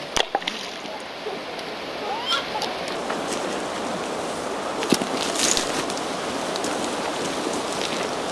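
Steady rushing of a shallow river flowing past a pebble shore, with a few sharp clacks of stones knocking on the shingle scattered through it.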